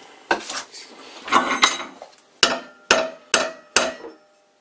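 Hammer blows on a bent steel tractor bolt clamped in a vise, struck to knock it back into line. There are several strikes, the last four about half a second apart, and each rings briefly.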